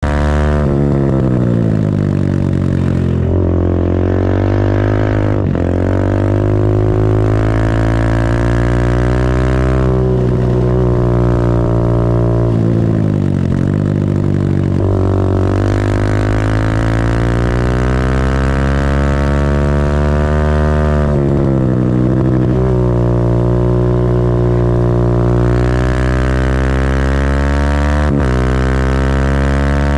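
Minibike race engine running hard around a track. The pitch climbs slowly for seconds at a time, then drops sharply, several times over. The owner puts the long high-rev stretches down to gearing that leaves the bike overrevving near its 10,000 rpm redline without pulling forward.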